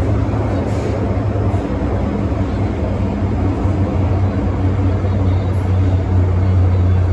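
MTR Island Line M-Train running between stations: a steady low hum with a dense rumble of wheels on rail, the hum getting a little stronger near the end.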